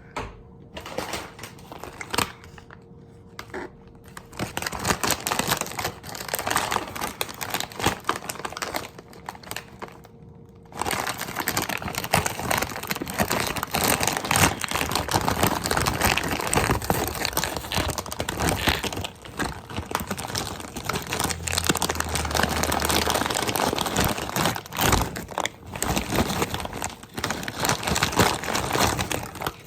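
Close-miked crinkling and crackling of a food wrapper being handled. It is sparse at first, grows busy after a few seconds, pauses briefly and then runs dense and continuous through the second half.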